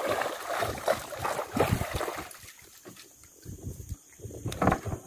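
Water splashing and sloshing for about two seconds, then quieter with scattered low knocks.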